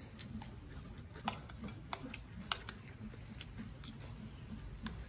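Metal spoons clicking against ceramic rice bowls in a handful of sharp, separate clicks, with quiet chewing between them.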